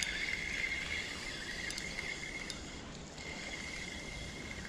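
Insects trilling steadily in a constant high-pitched chorus, fading briefly about three seconds in.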